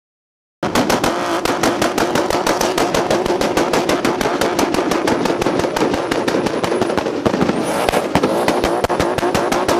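Turbocharged drift car engine held at high revs, firing a rapid, even run of loud exhaust bangs and pops from its anti-lag system. It starts abruptly about half a second in.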